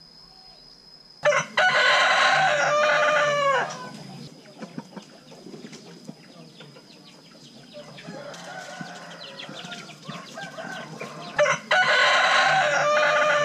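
Rooster crowing twice, about ten seconds apart, each crow a long loud call that drops in pitch at the end, with fainter sounds between the crows.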